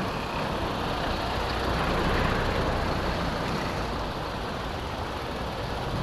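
Road traffic noise, with a motor vehicle passing closer and the noise swelling about two seconds in.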